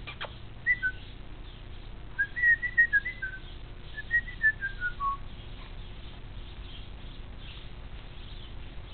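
A person whistling a short tune in clear high notes: two notes near the start, then a quick run of notes that wanders up and down and trails off lower about five seconds in.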